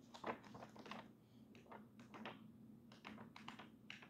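Near silence with faint, irregular light taps and clicks from hands handling things, about eight or nine spread over a few seconds.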